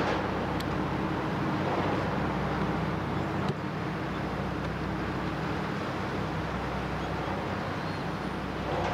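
Steady low engine drone: a hum of several held low tones over a constant rumble, with a single sharp click about three and a half seconds in.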